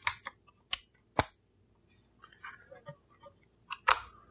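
Canon EOS R5 mirrorless camera body being handled: about four sharp plastic clicks at uneven spacing, with faint handling rustles between them, as its parts are worked.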